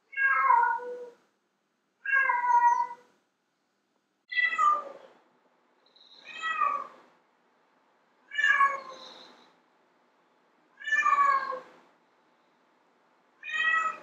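Domestic cat meowing repeatedly: seven drawn-out meows about two seconds apart, each falling in pitch, the fourth one quieter.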